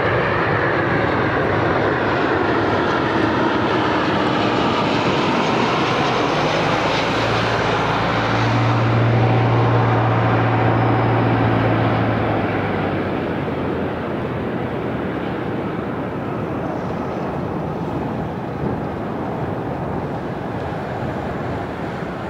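Jet aircraft engines running loud, with faint falling whine tones. A deep hum builds and is strongest around ten seconds in, then the sound eases off.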